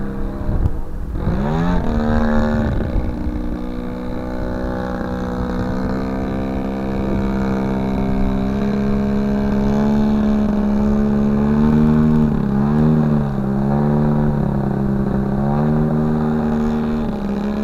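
Engine and propeller of a 40% scale Pilot Sbach RC airplane in flight. The pitch rises sharply about a second in, holds steady, then dips and climbs again a few times about twelve seconds in, following the throttle.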